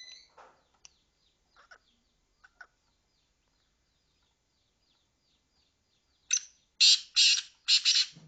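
Teetar (francolin) calling: a run of four loud, harsh notes in quick succession near the end, after a few short scattered calls. Faint high chirps repeat throughout.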